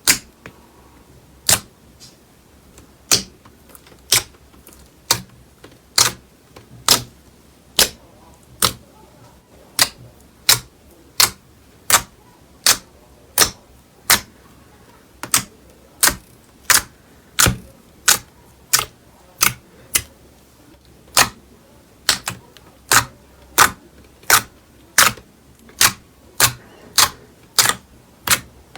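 Slime being handled, giving a long run of sharp clicking pops, about one to two a second at uneven spacing.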